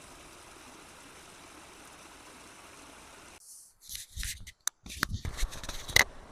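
A steady hiss, then a little past halfway a run of sharp clicks and rustling, with the loudest click near the end.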